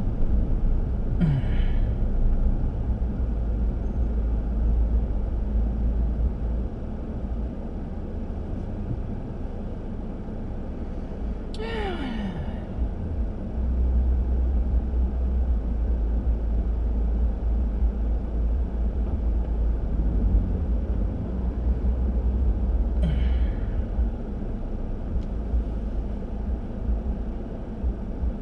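Steady low road rumble of a moving car, with a man making three short breathy vocal sounds over it: one near the start, a longer groan about twelve seconds in that falls steadily in pitch, and another about twenty-three seconds in.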